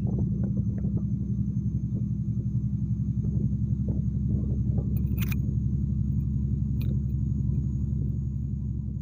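A fishing boat's engine running steadily under way: a low, even drone with a fast pulse. Two short sharp clicks come through about five seconds in and again near seven seconds.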